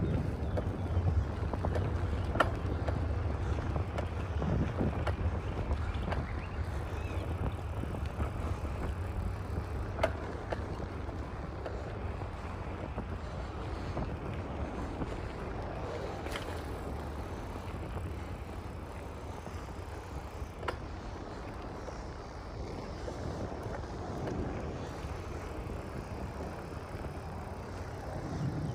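Outdoor street ambience: a low, steady rumble, heavier in the first few seconds, with a few faint clicks.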